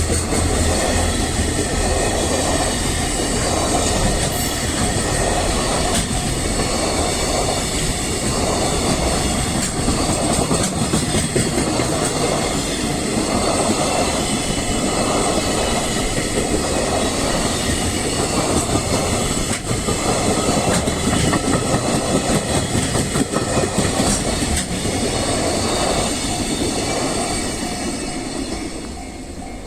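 A long freight train rolling past over the level crossing, its wheels clicking over the rail joints in a steady rhythm about once a second. The sound eases off near the end as the last wagons go by.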